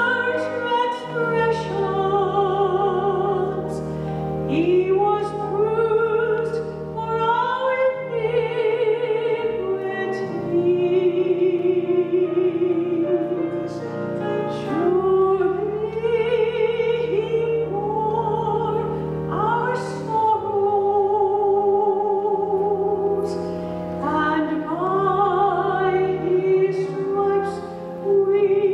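A woman singing a slow solo through a microphone, holding long notes with a wide vibrato over steady instrumental accompaniment.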